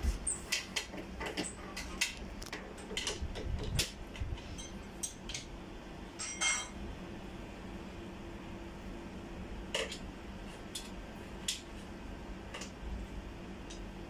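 Metal clicks and clinks of a screwdriver and the fittings of an aluminium door lever handle being worked, quick and many at first, then a few scattered clicks. A low steady hum runs underneath.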